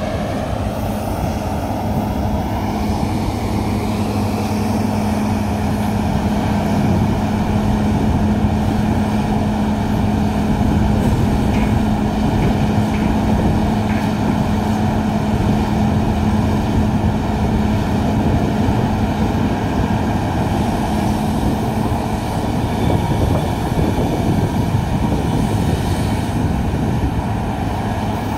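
Heavy diesel engines of a Komatsu PC1250 hydraulic excavator and a Komatsu HD465 dump truck running while the excavator digs and loads the truck: a steady low drone with a constant hum.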